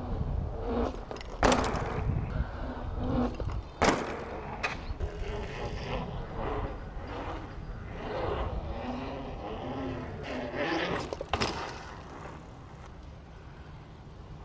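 Hardtail mountain bike dropping into a concrete skatepark ramp and riding on: tyres rolling and rumbling over the hard concrete, with three sharp knocks from the wheels hitting the ramp. The rolling dies down near the end.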